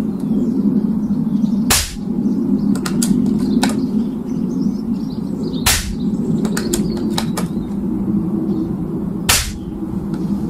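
Three silenced air rifle shots, each a sharp crack, about four seconds apart, with the metallic clicks of the action being cycled and reloaded after the first two. The rifle has a QGS silencer fitted. A steady low hum runs underneath.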